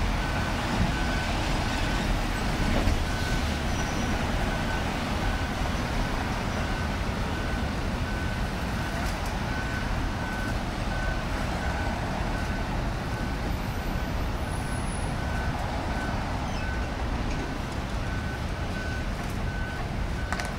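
Reversing alarm of a Ford F-550 emergency service truck giving a steady series of evenly spaced single-tone beeps as the truck backs up, over the steady rumble of its engine running.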